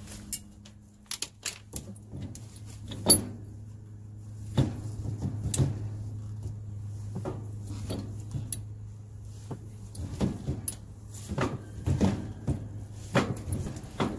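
Plastic union fittings on a pool heater's PVC return lines being worked loose by hand and wrench, giving scattered clicks and knocks of plastic and tools, the sharpest about three seconds in. A steady low hum runs underneath.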